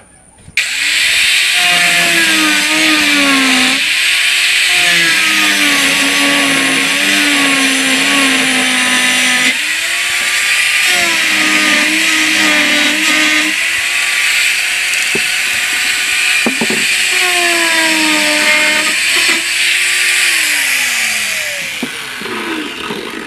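Handheld electric power tool cutting wood: the motor starts about half a second in, its pitch dipping repeatedly as it bites into the wood under load and recovering between cuts, then winding down with a falling pitch near the end.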